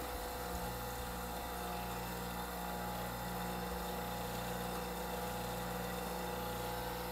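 Electric motor of a bench grinder used for sharpening, running steadily with a low hum that wavers slowly about once a second.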